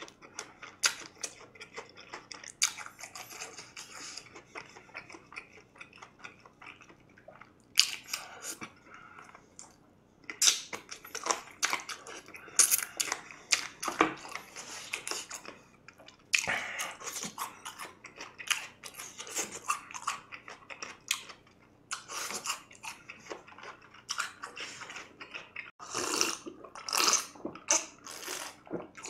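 Close-up chewing and biting of crispy fried chicken in spicy sauce: wet crunching and smacking in irregular bursts, and near the end gulps from a glass of iced drink.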